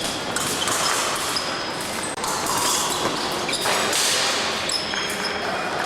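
Épée fencing in a large sports hall: a steady hall din with footwork thuds and many short, high ringing pings and squeaks scattered throughout.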